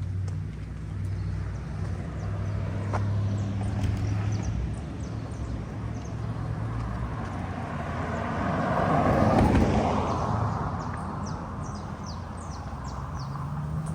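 Outdoor street ambience with a steady low engine-like hum, and a vehicle passing by, growing louder to a peak a little past the middle and fading away. Short high chirps near the end.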